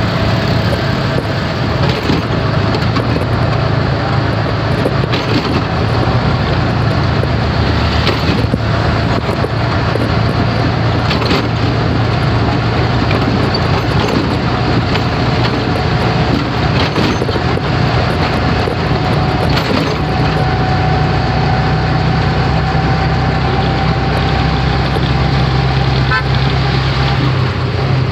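Auto-rickshaw engine running steadily at cruising speed, with road and wind noise, heard from the driver's seat in the open cab.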